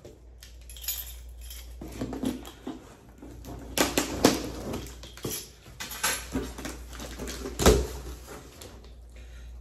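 Packing tape on a cardboard shipping box being slit and torn open, then the cardboard flaps pulled apart: irregular sharp rips, crackles and scrapes, with a louder thump near the end.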